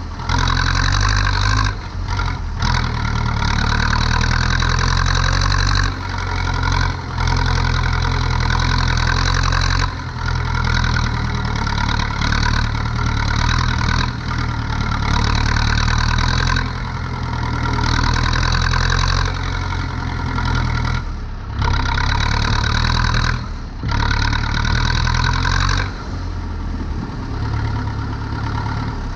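Zetor 7245 tractor's four-cylinder diesel engine running steadily under work while turning hay. The note dips briefly several times, then settles lower and quieter near the end as the throttle comes back.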